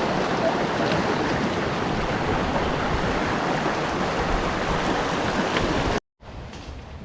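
Steady rush of moving water, with some wind, that cuts off suddenly about six seconds in.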